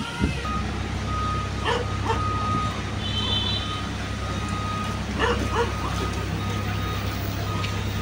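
Steady low hum of an idling diesel engine, with a thin high tone that comes and goes and a few short, sharp sounds.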